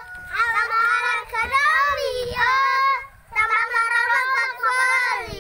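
Young children singing a song together, their voices high and sustained, with a short break about three seconds in.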